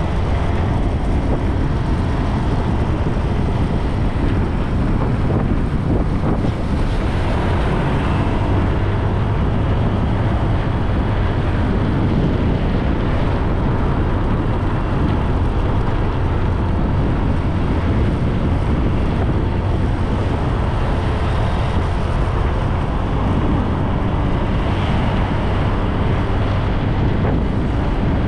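Steady wind rumble on the microphone of a moving bike, mixed with road noise while riding along a road.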